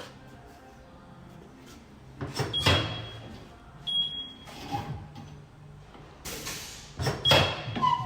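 A series of clunks and knocks as a wheel is handled and set up on a tyre balancer, the loudest about seven seconds in, with a brief hiss just after six seconds.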